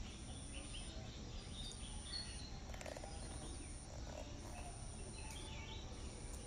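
Faint outdoor background: a steady low noise with scattered faint chirps and a thin broken high-pitched tone.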